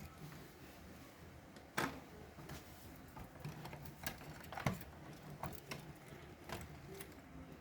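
Scattered light clicks and taps of small parts and tools being handled during disassembly, the loudest about two seconds in and again just under five seconds in.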